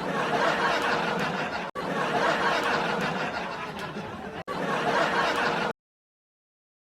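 Canned audience laughter sound effects played back to back: three clips, each cut off abruptly, the last stopping about a second before the end.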